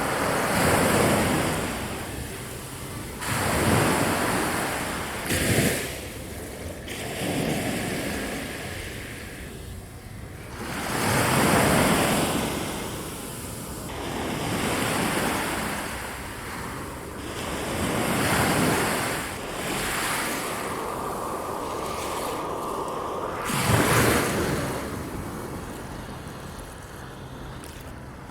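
Wind rushing in gusts, a steady noise that swells and eases every few seconds.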